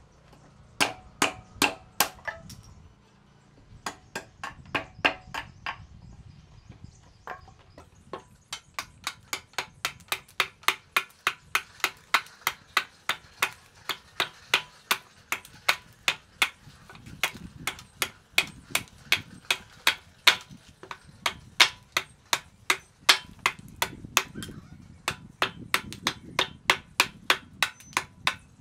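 Repeated sharp striking blows, first in a few short groups, then from about eight seconds in an even, steady run at about three blows a second.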